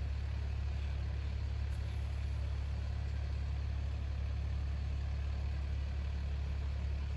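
Fire engine idling: a steady, unchanging low engine hum.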